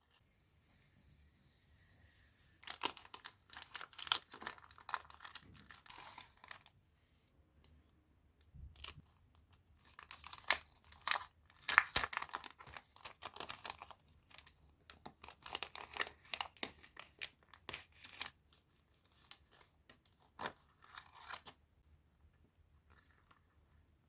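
Packaging being opened: a steady hiss to begin, then several spells of close-up crinkling, crackling and tearing with short pauses between them.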